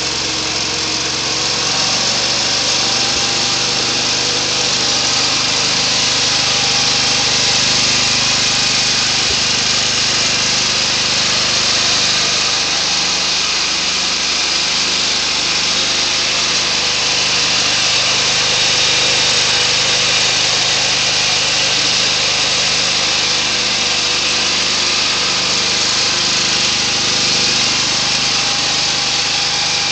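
A Simplicity 7010 garden tractor's 10 hp Briggs & Stratton engine running at a steady speed after a carburetor clean and adjustment.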